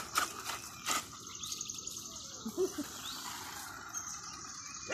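High, steady chirping of birds and insects, with a few sharp clicks in the first second.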